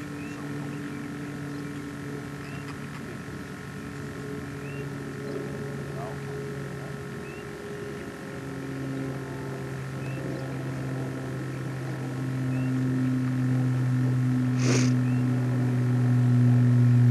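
A steady low mechanical drone, its pitch dropping slightly about eight seconds in and growing louder over the last few seconds, with faint short chirps about every second and a half and one sharp click near the end.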